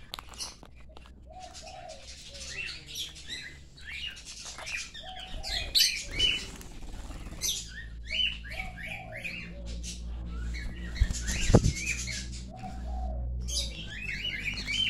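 Small pet parrots, peach-faced lovebirds and a cockatiel, chirping over and over in short, sharp, high calls.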